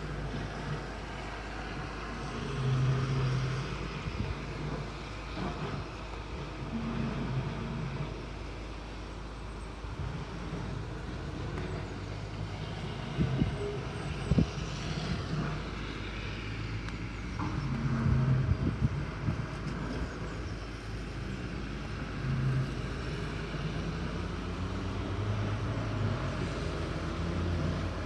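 A low droning hum that comes and goes in stretches of a second or two, over a steady outdoor rumble like distant traffic. A couple of brief knocks come about halfway through.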